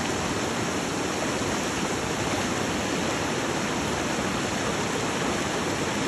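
Fast-flowing river rushing over rocks in rapids, a steady, even rush of water.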